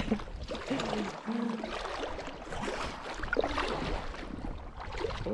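Double-bladed kayak paddles dipping and splashing in the water as an inflatable tandem kayak is paddled along, with irregular water noise from the strokes.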